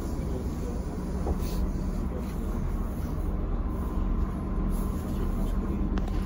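Cabin sound of a ZiU-682G trolleybus on the move: a steady low rumble with a thin, steady whine above it, and one short click near the end.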